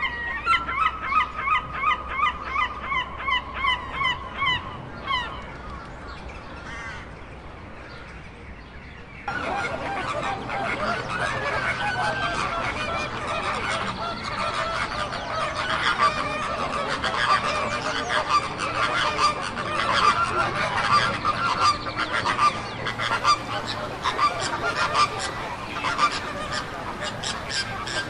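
Gulls calling in quick repeated calls, about two a second, for the first five seconds. About nine seconds in the sound changes suddenly to a flock of flamingos honking and chattering densely and steadily.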